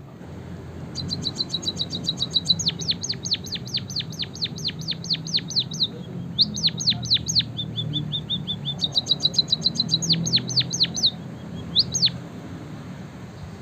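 A small finch singing canary-style song: a fast trill of quickly repeated high notes, then a run of sharply down-slurred notes at about five a second, broken by short pauses and repeated phrases, stopping a little before the end.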